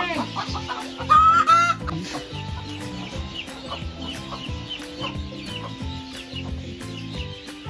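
Backyard hens clucking, with a louder drawn-out hen call about a second in and small high peeps repeating throughout, typical of young chicks; background music runs underneath.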